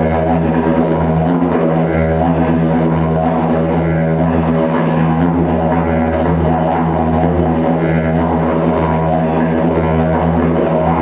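Didgeridoo played as a continuous low drone, with overtones that shift and swell about every second or two.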